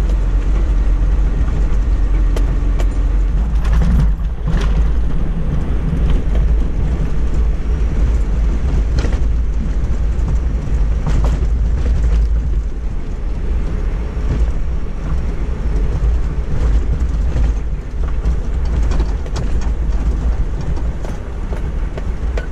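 Vehicle driving along a sandy dirt track: a steady low rumble of engine and tyres, with scattered knocks and rattles from bumps in the track.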